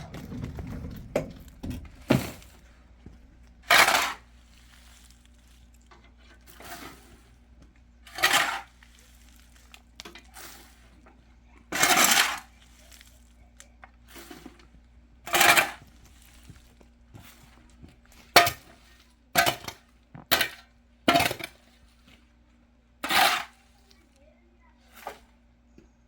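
Firewood logs knocking and clattering against one another, about ten separate clatters a few seconds apart, coming closer together past the middle.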